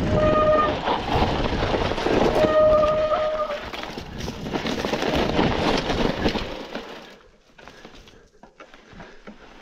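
Mountain bike rolling down a steep trail, its tyres making a loud rumbling noise over the ground. Its brakes squeal twice in the first few seconds as it is held back on the descent. The noise drops off after about seven seconds.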